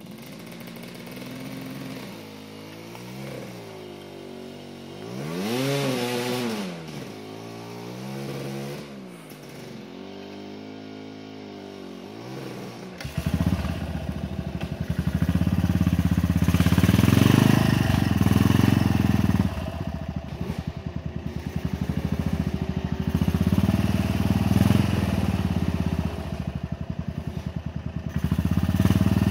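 Off-road motorcycle engines. For the first part a more distant bike revs up and down, its pitch rising and falling several times. About 13 seconds in, a much louder engine close by takes over, running with a fast low beat and revs that swell and drop.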